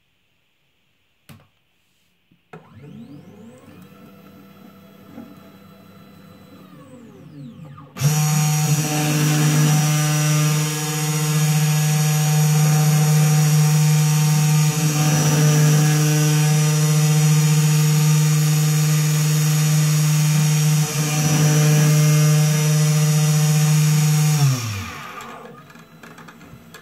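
Small desktop CNC milling machine drilling a ping pong ball. The axis motors whine in gliding pitches as the head moves. About eight seconds in, the spindle motor starts suddenly and runs loud at a steady high pitch, then winds down with falling pitch near the end.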